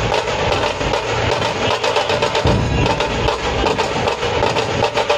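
A Maharashtrian dhol pathak, a troupe of large barrel-shaped dhol drums played together in a fast, dense, loud rhythm.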